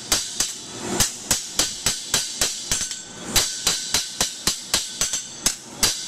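Steady light hammer blows on the sheet-steel brim of a burgonet helmet, about four ringing metallic strikes a second with two brief pauses. The brim is being forged to thickness with light blows so the metal is not thinned, while its curve is rolled.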